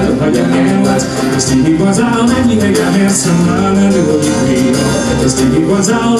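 Scottish folk band playing live: a man singing lead over instrumental backing with percussion.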